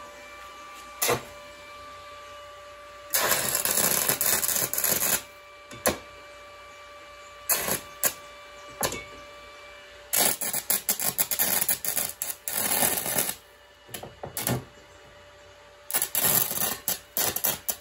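Arc of an inverter stick welder crackling in three bursts of a few seconds each, with short single strikes between them, as an aluzinc nail is burned as the welding rod at 110 amps. The arc keeps going out and being struck again, which the welder takes for too little amperage.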